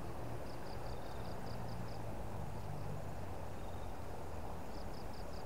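Insect chirping in two runs of quick, even, high chirps, about five a second, the second run starting near the end, over a steady low rush of flowing river water.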